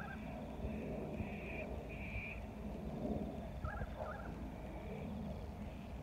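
Waterbirds on a lake calling: a short double note at the start and again about two-thirds of the way through, with higher, longer calls in between, over a steady low background rumble.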